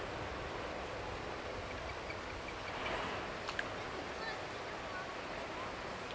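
Steady rush of flowing river water, with a few faint bird chirps and a single sharp click about three and a half seconds in.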